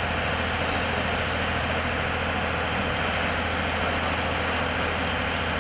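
Steady rushing noise of a building fire being hosed down with water, over the constant low drone of a fire engine running.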